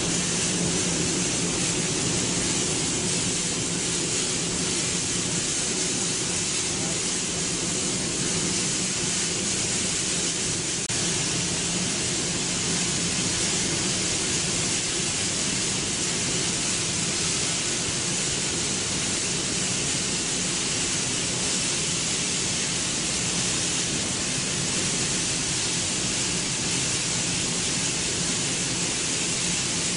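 Steady factory machinery noise: an even hiss with a low hum underneath, unchanging throughout.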